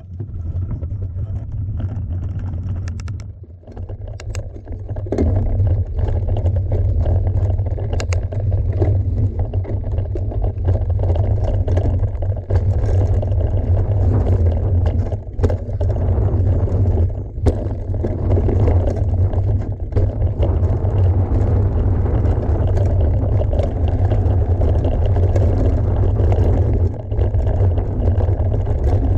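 Wind noise on the microphone and mountain-bike tyres rolling over a dirt trail on a fast downhill run, with scattered sharp clicks and rattles from the bike over bumps. It grows louder about five seconds in and stays loud.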